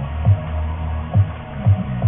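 Background music with a steady bass line and a thudding low beat.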